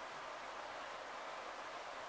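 Steady, faint hiss of background noise with no distinct sounds in it.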